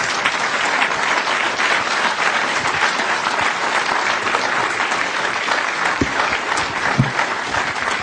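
Audience applauding in a lecture auditorium, dense and steady, with two low thumps about six and seven seconds in.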